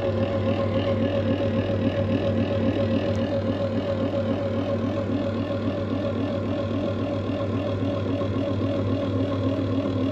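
Electric dough-kneading machine's motor running steadily with an even hum as it mixes flour for dough.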